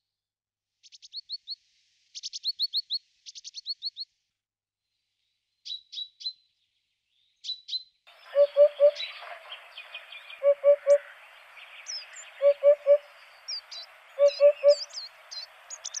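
Short series of high, rapid chirps in the first half. Then, about halfway, a Eurasian hoopoe sings its low 'oop-oop-oop', three notes repeated about every two seconds, with other birds singing in the background.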